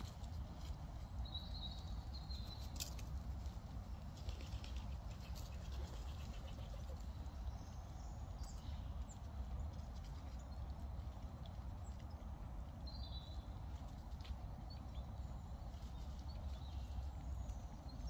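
Grey squirrels scurrying and digging in dry leaf litter: a light, irregular patter of rustles and clicks over a steady low rumble. A few short, high bird chirps come in now and then.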